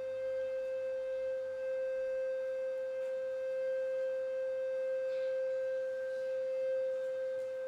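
One steady, nearly pure tone held at a single pitch a little above 500 Hz, around the C above middle C, with faint overtones and no break or change in pitch.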